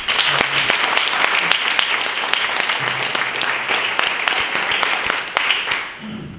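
Audience applauding: the clapping starts at once, holds steady, and dies away over the last second or so.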